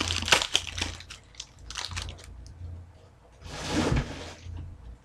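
Crinkling of a trading-card pack wrapper being opened, then light clicks from the cards being handled and a brief rustle about three and a half seconds in, over a low steady hum.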